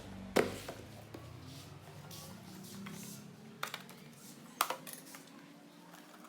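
A Bloody A70 gaming mouse and its packaging being handled: a few sharp clicks and knocks, the loudest about half a second in and again near three quarters of the way through, over a faint steady hum.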